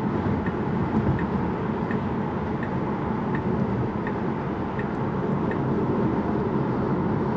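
Steady road and tyre noise inside the cabin of an electric Tesla Model 3 cruising at highway speed, about 59 mph. A faint tick repeats about every two-thirds of a second.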